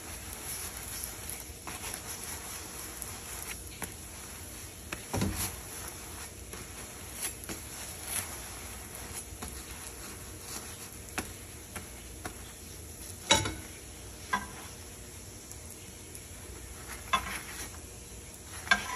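Metal slotted spatula scraping and tapping against a frying pan as a chapati is pressed and turned, over a faint steady sizzle of the bread cooking. The taps come at scattered moments; the sharpest is about 13 seconds in, with more near the end as the chapati is lifted.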